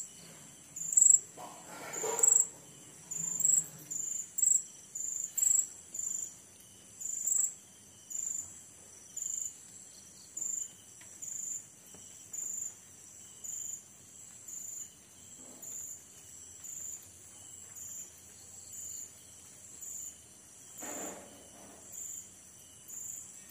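Night insects: a cricket chirping in short high-pitched chirps about once a second, louder in the first few seconds, over a faint steady high insect drone. Two brief rustling noises, one near the start and one near the end.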